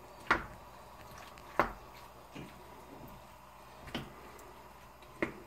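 Wooden spoon stirring sliced mushrooms into a creamy sauce in a pan, with about five sharp knocks of the spoon against the pan at uneven intervals and soft squishing in between.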